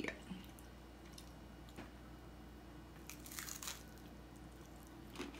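Hard taco shell crunching as it is bitten into: one short, faint crackle a little after three seconds.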